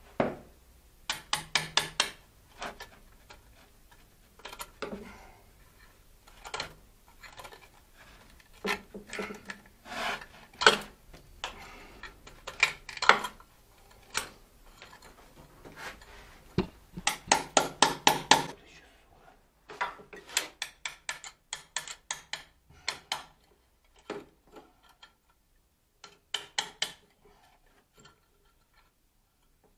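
Metal tools clinking and knocking against metal, in irregular clusters of sharp taps, some in quick runs of several strikes.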